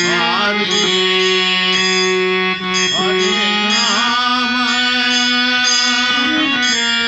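Background devotional music: a steady held drone under a melody that slides and wavers in pitch.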